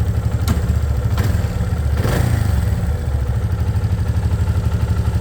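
Yamaha Fazer 250 single-cylinder engine running at idle with a rapid, steady pulse, with two sharp clicks about half a second and a second in and a slight swell in engine note around two seconds. The owner hears an abnormal noise from the engine, not the exhaust, that he takes, as others online do, for valve noise.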